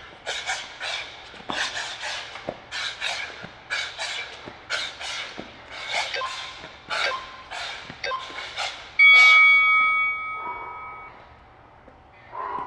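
Sharp, rhythmic exhalations, about two a second, from a boxer throwing punches while shadowboxing. Near the end, a few short beeps and then one loud long beep from an interval timer mark the end of the work round, and the breathing slows.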